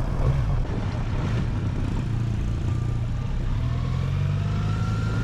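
Motorcycle engine running steadily, then rising in pitch as the bike accelerates about three and a half seconds in.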